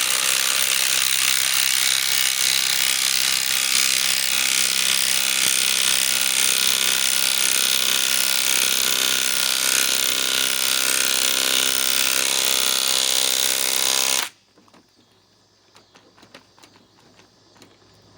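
Metabo SSW 18 LTX 300 BL cordless compact impact wrench hammering steadily while driving a long fastener of about 3.5 inches. It stops suddenly about fourteen seconds in, followed by a few faint clicks.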